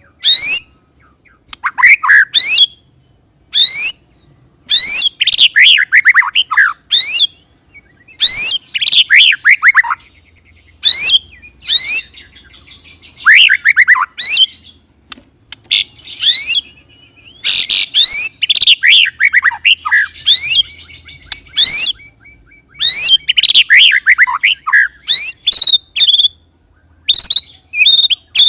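White-rumped shama (murai batu) singing loudly in short bursts. Each burst is a fast run of sharp, rising whistled notes, and some end in falling rolling note series. Short pauses separate the phrases.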